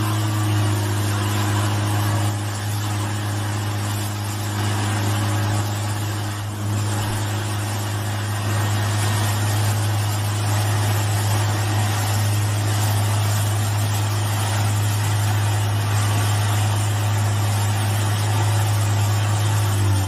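Stump grinder's engine running steadily under load as its cutter wheel grinds into a tree stump: a constant low engine hum beneath a wide hiss of grinding wood.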